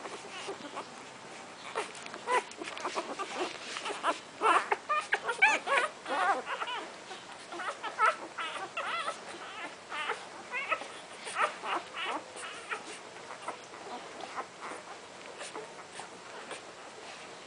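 Newborn golden retriever puppies squeaking and whimpering while suckling at their mother: many short, wavering, high calls, busiest in the middle, with small clicks between them.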